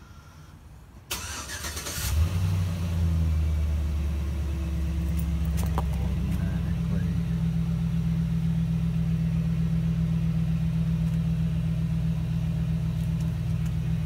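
Chevrolet pickup truck's engine remote-started with an auto starter: the starter cranks about a second in, the engine catches, and it settles into a steady idle.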